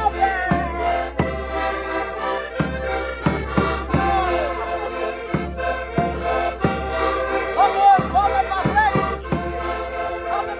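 Several diatonic button accordions (Portuguese concertinas) playing a lively traditional dance tune together over a regular beat of sharp strikes, with a voice singing over them at times.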